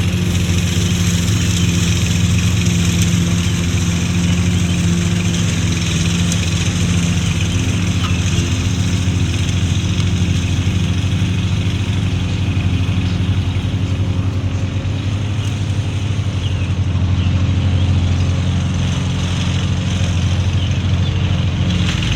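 Toro Smart Stow self-propelled gas push mower's engine running at a steady pitch while mowing.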